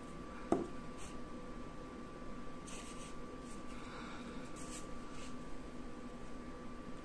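Hands handling a small DC motor and its parts over a paper-covered table: a light tap about half a second in, then a few faint rustles and scrapes, over a steady faint hum.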